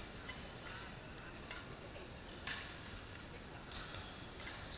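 Table tennis rally: the celluloid-type ball clicking sharply off the bats and the table, a handful of irregularly spaced ticks with the loudest about halfway through, with the echo of a large sports hall.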